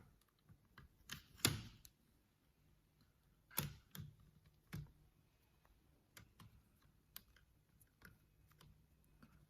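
Scattered light clicks and taps of hands handling the parts of an opened mechanical keyboard. The loudest knock comes about a second and a half in, with a few more taps and fainter ticks after it.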